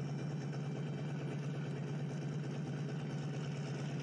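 Drag-race cars' engines idling: a steady, unchanging low drone.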